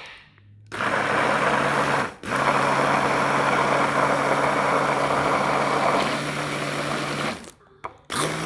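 Electric blender running in two stretches, a short one of about a second and then about five seconds, cutting out briefly between them and stopping near the end, as blueberries are blended into the porridge mixture.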